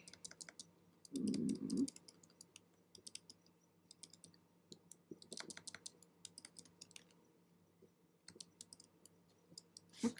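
Scattered light clicks and key taps at a computer keyboard, with a short low rumble about a second in.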